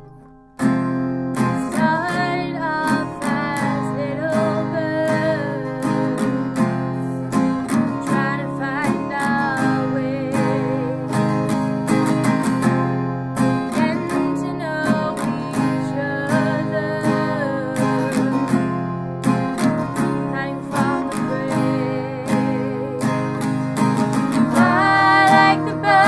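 A song with strummed acoustic guitar and a female voice singing with vibrato, coming in sharply about half a second in after a brief drop in level.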